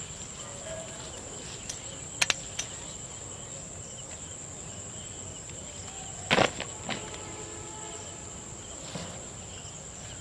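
Insects keep up a steady high-pitched drone. A couple of sharp clicks come about two seconds in, and a loud knock a little past six seconds in.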